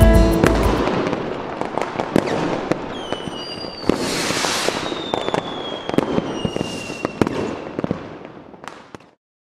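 Fireworks going off: many sharp cracks and pops with hissing bursts and two whistles that fall slowly in pitch, growing fainter until they stop about nine seconds in. Background music cuts off in the first second.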